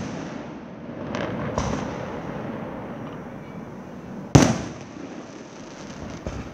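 Aerial firework shells bursting: two lighter cracks about a second and a half in, then one loud bang just past four seconds that dies away slowly, with crackling between the bangs.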